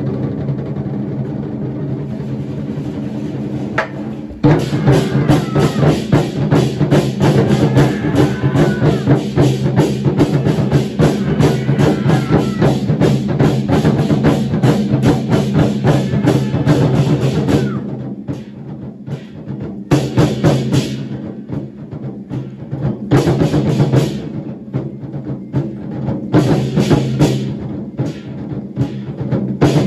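An ensemble of large Chinese barrel drums played in unison over a steady low backing track. Fast, dense drumming starts about four seconds in. In the second half it breaks into separate bursts of strokes with short pauses between them.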